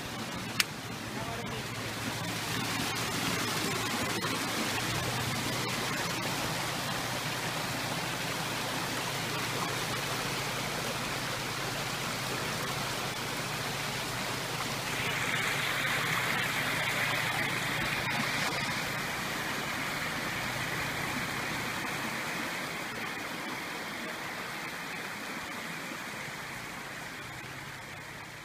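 Steady rush of creek water running over rocks, growing brighter about halfway through, with a faint low engine hum underneath and a single sharp click about half a second in. It fades out near the end.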